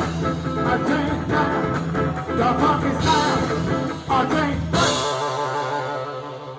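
A live funk band plays with a steady drum beat. Just before five seconds in, the band hits a final accent and the beat stops, leaving a held chord ringing and fading.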